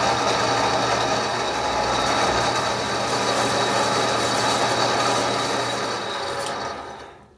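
Steady machine noise with a low hum and a thin high whine, cutting off about seven seconds in.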